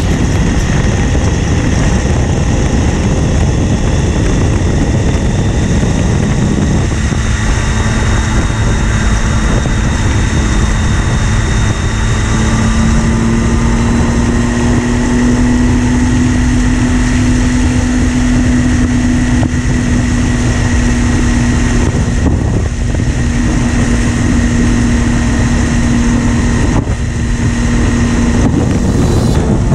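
Motorcycle engine running at road speed under heavy wind rush on the microphone. About a quarter of the way in, the engine note comes through and climbs slowly as the bike gathers speed, then holds steady.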